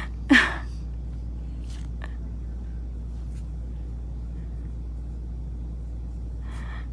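Steady low hum, with a brief vocal sound just after the start and a few faint light ticks.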